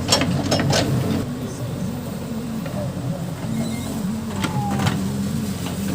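Case backhoe loader's diesel engine running steadily, with several sharp knocks in the first second and two more about four and a half seconds in.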